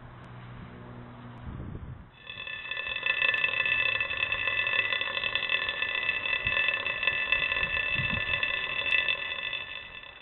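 Steam whistle from a water vessel boiled at the focus of a parabolic solar mirror. It starts about two seconds in and runs as a loud, steady, slightly fluttering whistle with several high tones at once.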